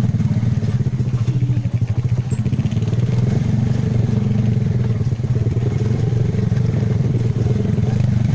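Small motorcycle engine running steadily on a dirt trail, a dense, even pulsing hum with no change in pace.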